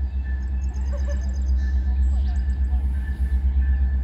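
Songbirds chirping, with a quick high trill about half a second in and short repeated calls, over a steady low rumble.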